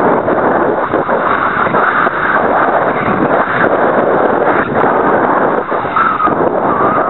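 Loud, steady rushing noise from the onboard camera of a Super Cub LP RC airplane in flight: wind over the microphone mixed with the electric motor and propeller driving through a broken gearbox. A faint whine rises near the end.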